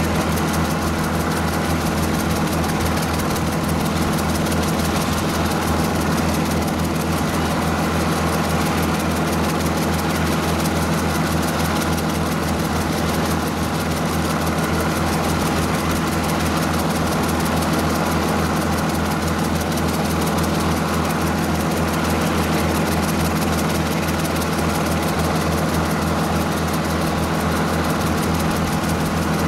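Schweizer 300C helicopter running steadily on the ground, its four-cylinder Lycoming piston engine and main rotor turning with a fast, even pulse.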